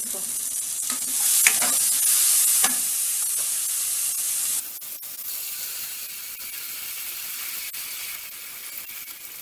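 Chopped onion, capsicum and green chillies sizzling in hot oil in a non-stick pan, with soy sauce just added, while a spatula stirs and scrapes through them. The sizzle is strongest at first, then drops suddenly to a softer hiss about halfway through.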